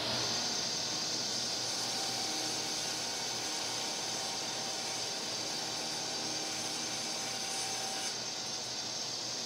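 Table saw running with a steady high whine while it rips glued-up hardwood strips to a straight edge.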